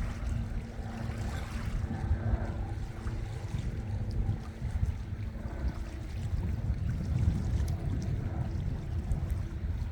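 Outdoor sea ambience dominated by wind buffeting the phone's microphone in a heavy uneven rumble, with water noise and a faint steady hum underneath.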